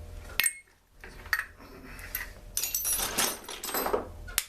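Small metal parts and tools clinking and clattering on a worktable. There is a sharp click about half a second in, a denser run of rattling in the second half, and another sharp click near the end.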